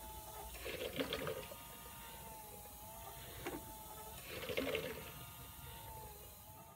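DIY emergency ventilator prototype cycling: its small 12 V DC gear motor whines steadily with a slightly wavering pitch. Twice, about three and a half seconds apart, there is a burst of gurgling as air bubbles out through the water-column PEEP valve with each breath.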